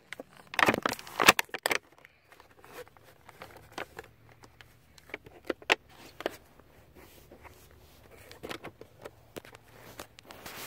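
Small plastic toy parts and packaging handled: scattered sharp clicks and crinkling rustles as a toy sword piece is worked on, busiest in the first two seconds and then sparser.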